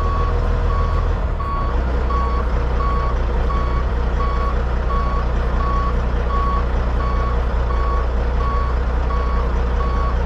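Truck reversing alarm beeping steadily, about twice a second, over the low running of the prime mover's diesel engine as it backs up to a road-train dolly.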